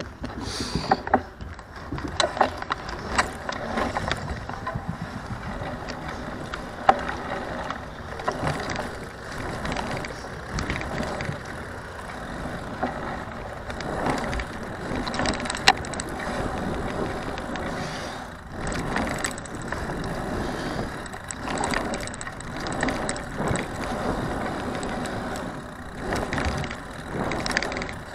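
Wheels rolling over a modular pump track's rollers and berms and the asphalt between them, heard from a camera riding along. It is a steady rolling rattle broken by frequent sharp knocks and clicks.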